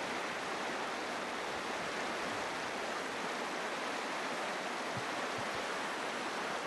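Steady rushing of water, an even hiss with no change throughout.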